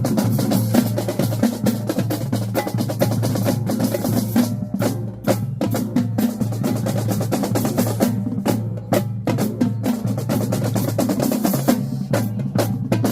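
Marching drumline playing a cadence: rapid snare drum strokes and rolls over bass drums. The drumming stops short for a moment a few times, then comes straight back in.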